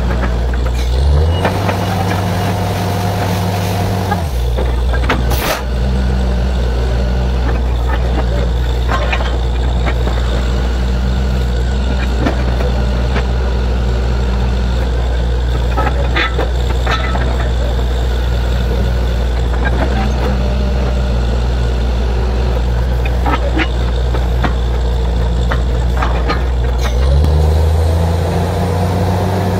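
Borewell drilling rig's engine running loud and steady, revving up about a second in, settling back a few seconds later and revving again near the end, with scattered short knocks.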